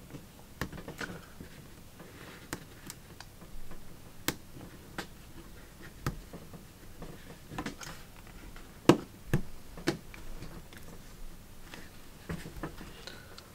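Scattered small clicks and taps of fingers handling display cables and pressing small connectors onto a MacBook Pro's logic board, the sharpest click about nine seconds in.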